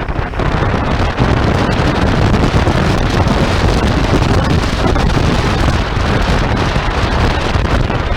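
Heavy wind buffeting the microphone on a moving motorcycle, with the Royal Enfield Interceptor 650's parallel-twin engine running steadily underneath.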